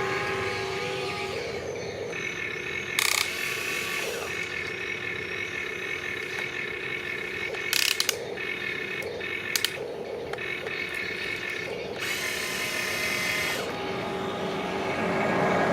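A model excavator's small electric motors and gearboxes whirring steadily as the machine works, with a few sharp clicks and a louder, rougher stretch of motor noise near the end.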